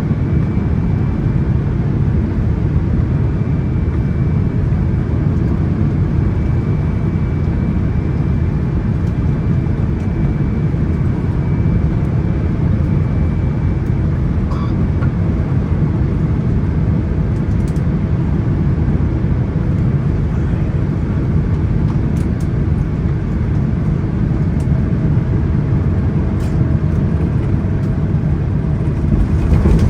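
Steady low rumble inside the cabin of a Boeing 777-300ER, the noise of its GE90 engines and airflow, which grows a little louder right at the end.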